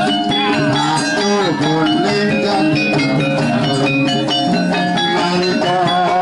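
Javanese gamelan ensemble playing dance music, with many struck metal notes ringing in quick succession over a kendang drum.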